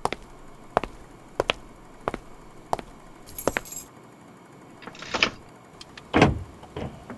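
Evenly spaced sharp clicks, about three every two seconds, then keys jangling briefly. After that a car key scrapes into a car door lock and turns, with the loudest clunk about six seconds in.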